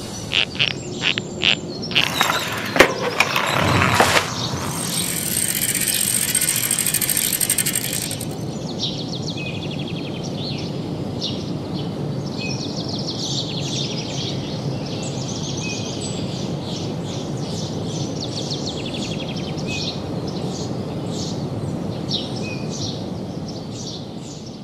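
A run of sharp clicks and knocks, then a few seconds of loud hiss. After that comes steady outdoor background noise with many small birds chirping.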